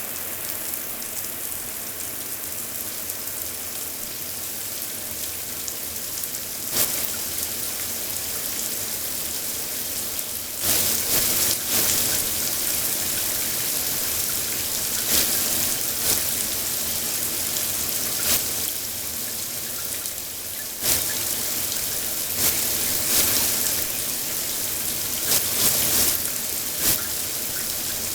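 Shower running: a steady hiss of spraying water, with brief louder splashes now and then.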